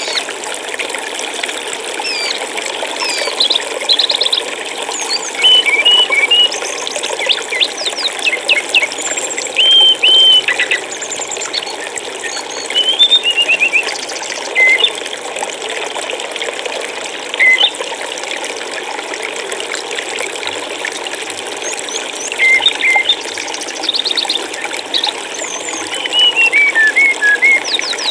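Water flowing steadily, like a stream, with small songbirds chirping and trilling over it in short high whistled phrases, the loudest bursts of song coming in clusters about a third of the way in, near the middle and near the end.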